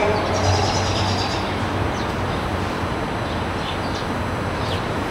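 Steady outdoor background noise with a low rumble that eases off in the first second or so, and a few faint short high chirps.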